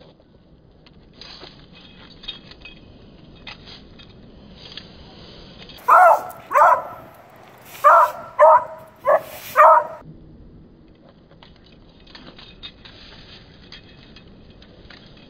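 Beagle puppy barking six times in quick succession in the middle, sharp and loud. Before and after the barks, a push broom's bristles scratch across concrete.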